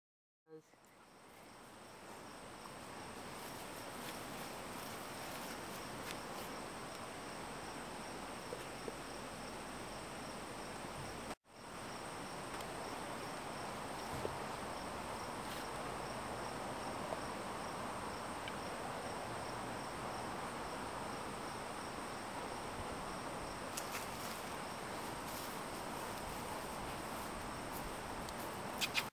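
Steady rushing of a river, an even water noise with a thin steady high-pitched tone above it; it fades in at the start and cuts out for an instant about eleven seconds in.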